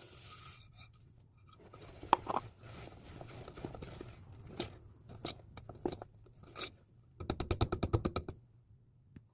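Kitchen utensils being handled in a baking preparation: scraping and sharp knocks, then near the end a quick run of about a dozen strokes, roughly ten a second.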